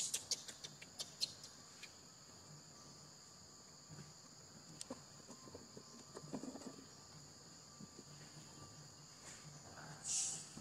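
Steady high-pitched chorus of insects droning in the forest, with scattered soft clicks and rustles near the start and a short louder high hiss near the end.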